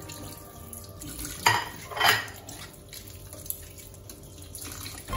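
Kitchen dishes and utensils clattering: two sharp knocks about half a second apart, a second and a half in, with water sounds from a sink.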